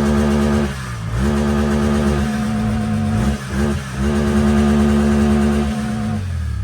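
An off-road vehicle's engine being revved and held at high revs, with brief let-offs where the revs dip and climb again, then falling away near the end as the throttle is released.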